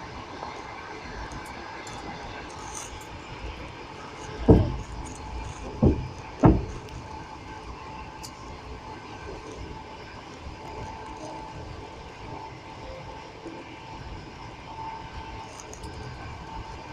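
Passenger train running, heard from inside the carriage: a steady rumble with a faint held tone, and three loud clacks of the wheels over rail joints about four to seven seconds in.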